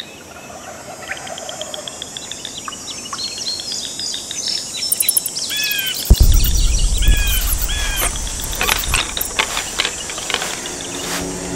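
Birds chirping and insects in a woodland ambience. About six seconds in there is a sudden deep boom, the loudest sound, followed by a run of sharp clicks.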